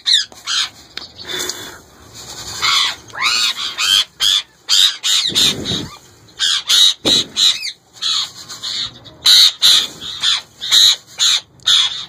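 Indian ringneck parakeet giving loud, harsh squawks over and over in quick succession.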